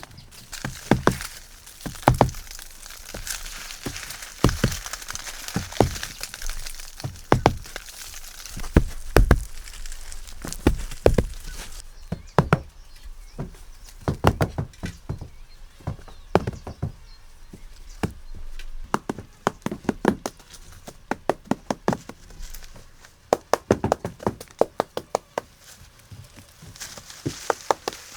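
Irregular knocks and cracks, some sharp and loud, scattered through with no steady rhythm, over a faint hiss that stops about halfway.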